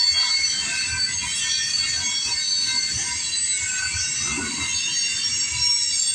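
Freight train cars rolling through a level crossing, their wheels squealing in several steady high-pitched tones over a low, uneven rumble.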